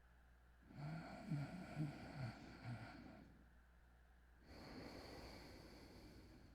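Person snoring lightly: a low, uneven buzzing snore lasting about two seconds, starting a little under a second in, then a softer, airy breath a couple of seconds later.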